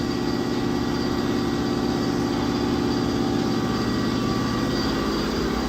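A machine running steadily: a low hum with a fast, even flutter and a faint high whine over it.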